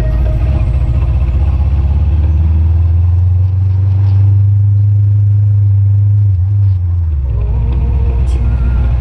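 Motorcycle riding along a road: the low rumble of its engine mixed with wind on the camera. The rumble swells a few seconds in and eases off about seven seconds in.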